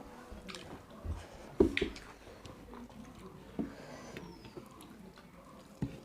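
Close-up eating sounds: mouth-noise chewing with scattered small wet clicks and smacks, and one louder knock about a second and a half in.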